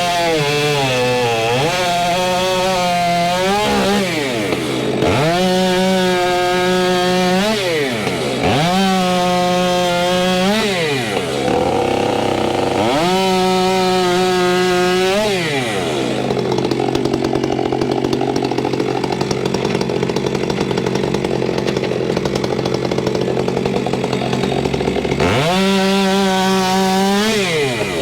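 Stihl MS462C two-stroke chainsaw with an 18-inch bar bucking walnut logs into firewood. The engine revs up to full throttle, holds through each cut and drops back, about five times in quick succession. It then runs at a steadier, lower pitch for roughly ten seconds before revving up again near the end.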